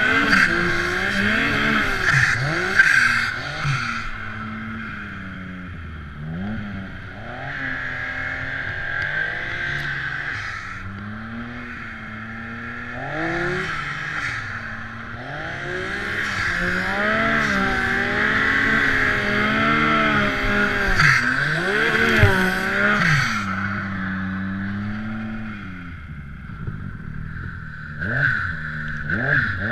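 Turbocharged Yamaha SR Viper M-TX snowmobile's three-cylinder four-stroke engine revving up and down repeatedly under heavy throttle while the sled ploughs through deep powder snow.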